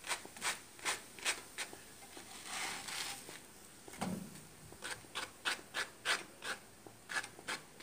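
Light scraping and tapping in a frying pan, a few short strokes a second with a longer rub about two and a half seconds in, as semolina flatbreads (harcha) are turned over in the pan.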